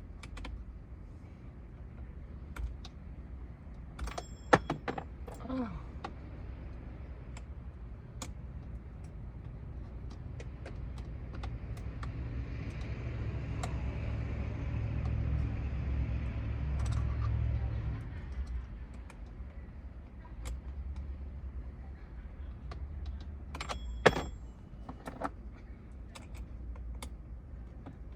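Small clicks and taps of an L-shaped hex key and plastic trim being worked on a car steering wheel, with two sharp metallic clinks, about four seconds in and again near the end. A low rumble swells in the middle and fades away.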